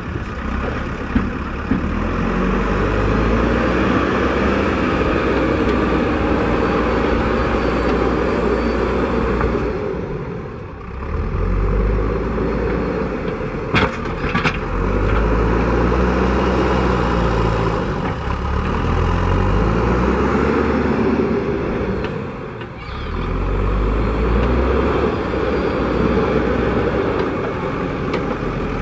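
JCB 3DX Super backhoe loader's diesel engine revving up and down under load as the front loader pushes into sand and lifts the bucket, easing off twice between cycles. A couple of short sharp knocks come about halfway through.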